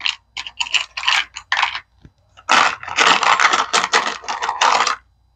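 Loose metal screws clattering in clear plastic parts organizers as they are handled, with small plastic clicks: a scatter of short clicks, then a denser rattling from about two and a half seconds in until shortly before the end.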